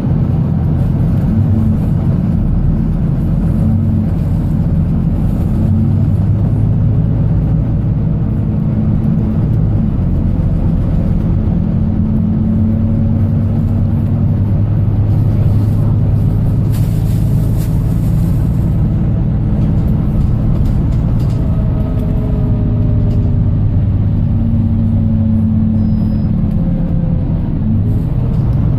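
Volvo B9TL double-decker bus's diesel engine running under way, heard from inside the bus, its note rising and falling as it pulls and eases off, over steady road noise. A brief hiss comes about seventeen seconds in.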